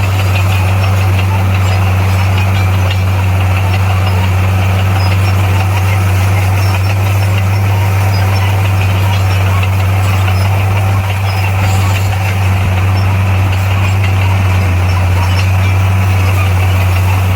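Bulldozer's diesel engine running at a steady speed, a constant low drone with no change in pitch.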